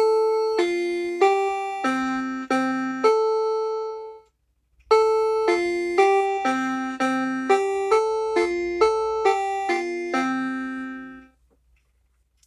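A keyboard tune with a piano-like tone, played as single struck notes that ring and fade: a short phrase, a pause of about a second, then a longer phrase.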